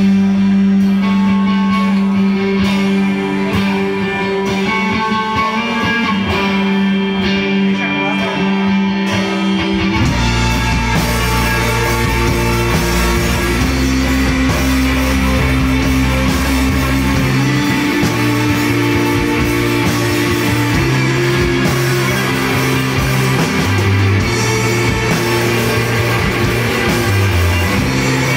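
Rock band playing live: electric guitars and drums. A sparser passage of held low notes and single guitar notes gives way, about ten seconds in, to the full band with cymbals.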